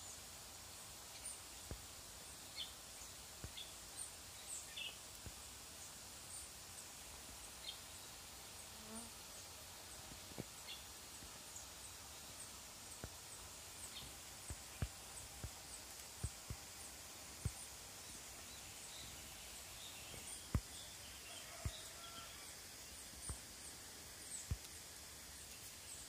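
Faint open-air ambience: a steady hiss with many short, high chirps, and scattered short clicks that come more often in the second half.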